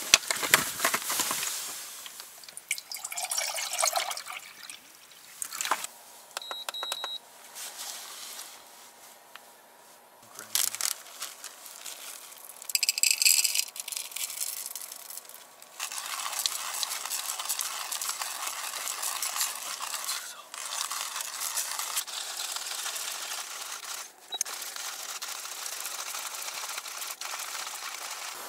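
Water poured from a plastic jug into an enamel camping mug, then a short high beep from a portable induction cooktop's controls. For the last twelve seconds or so there is a steady rushing noise as the cooktop runs under the mug.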